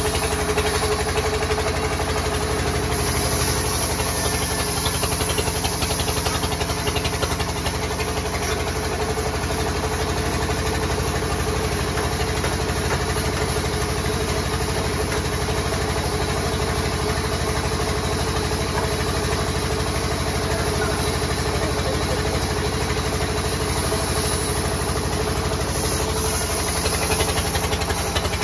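Large vertical band sawmill running steadily with no change in speed, a constant machine drone with a fast even pulse.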